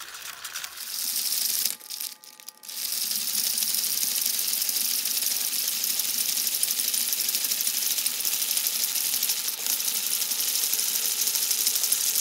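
Clear plastic hand-cranked cassette tape winder being turned on a TDK cassette, winding its tape reel. It makes a steady, fast, fine clicking rattle from the gearing, with a short break about two seconds in.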